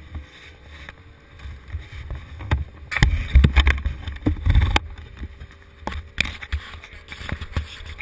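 Handling noise on an action camera: a hand and racing-suit sleeve rubbing and knocking against the camera, giving an uneven low rumble with scattered knocks that is loudest a few seconds in.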